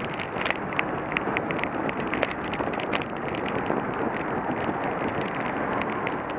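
Wind buffeting the microphone of a camera on a moving bicycle, a steady rushing noise, with frequent small, irregular clicks and rattles over it.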